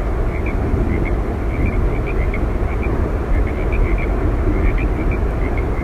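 Steady, deep roar of Yosemite Falls' falling water, with short high chirps repeating in small clusters all through it.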